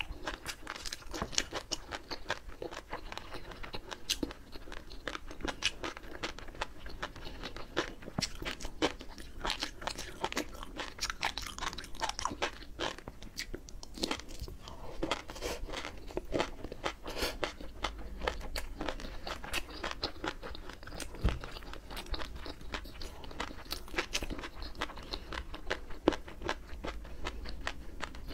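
Flying fish roe (tobiko) being chewed close to lapel microphones: a dense, continuous run of small crunching, popping clicks as the tiny eggs burst between the teeth.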